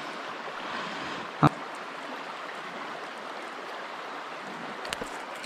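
Shallow stream running steadily over a pebble bed, with one sharp knock about one and a half seconds in and a few faint clicks near the end.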